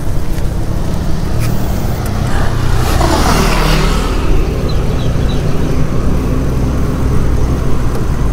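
Wind rushing over the camera microphone and tyres rolling on asphalt as a mountain bike is ridden along a road, a steady low rumble that swells into a louder rush about three seconds in.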